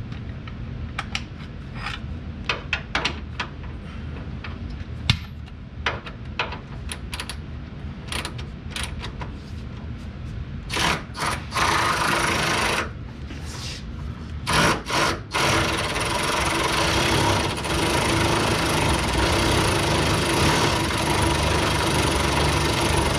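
Scattered sharp clicks and knocks of hand tools on car suspension parts, with a few louder scraping bursts past the middle. About two-thirds of the way in, a steady machine noise with a constant hum starts and keeps running.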